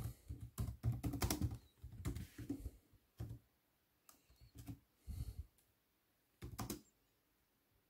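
Keys of an Acer laptop keyboard being typed: a quick run of keystrokes for about the first three seconds, then a few scattered presses that stop about a second before the end.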